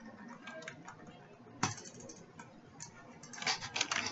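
Computer keyboard keys being typed on, irregular keystroke clicks with one sharp key strike about a second and a half in and a quick run of keystrokes near the end.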